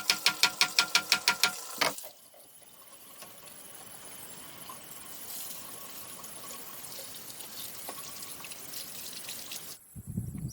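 A quick run of sharp, ringing strikes, about six a second, stops about two seconds in. A steady rushing noise like flowing water follows, and low knocks come in just before the end.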